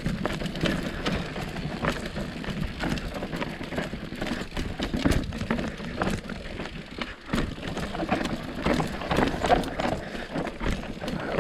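Mountain bike riding down a steep, rocky downhill trail: knobby tyres rolling over rock, with frequent sharp knocks and rattles from the bike as it hits the rough ground.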